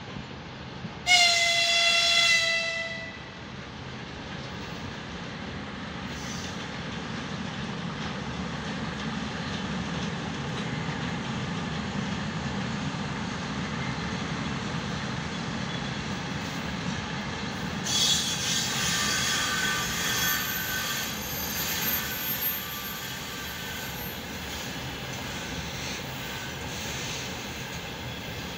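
A 3ES8 'Malakhit' electric freight locomotive sounds a single high-pitched whistle for about two seconds, about a second in; then the container train rolls past with a steady low rumble. About two-thirds of the way through, its wheels squeal in wavering high tones for several seconds.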